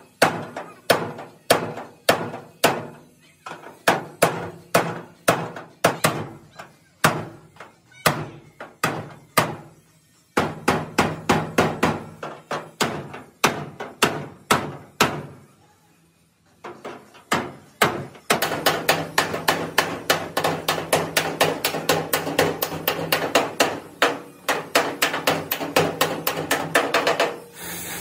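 Hand hammer striking the steel sheet-metal panels of an excavator cabin frame, beating out the damage in a long run of sharp blows, about two to three a second. The blows break off briefly past the middle, then resume faster.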